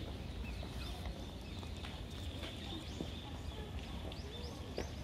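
Birds chirping in many short, quick notes in the trees, with a few footsteps clicking on stone paving.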